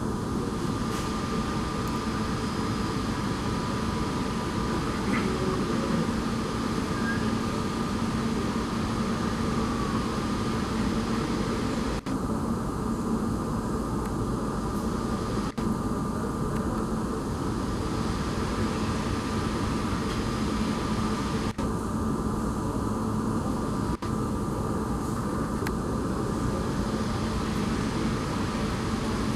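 Airbus A320neo's CFM LEAP-1A26 jet engines running steadily: a continuous rumble with a constant whine over it, broken by a few momentary dropouts.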